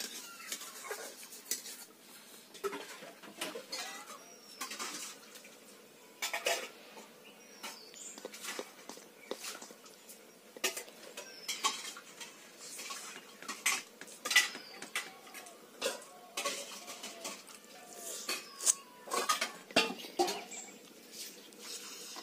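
Eating by hand: fingers mixing rice and tapping and scraping on a stainless steel plate, with chewing and lip-smacking, heard as a run of irregular short clicks and taps.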